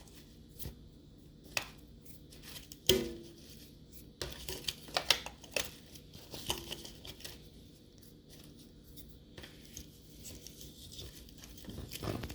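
Hair being pulled and torn off a Roomba's brush roll, with scattered clicks and scrapes of the plastic brush being handled. There is a sharp click about three seconds in and a cluster of clicks around five seconds.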